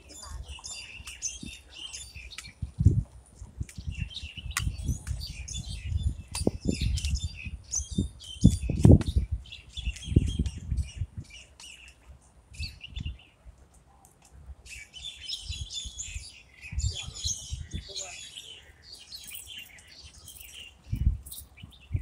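Small birds chirping and twittering in quick bursts, pausing briefly a couple of times. Irregular low rumbles and thumps on the microphone come and go underneath, the strongest about three seconds in, around nine seconds and near the end.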